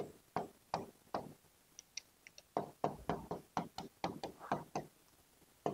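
Writing on a board: an irregular run of light taps and strokes, few at first and coming thick and fast through the second half.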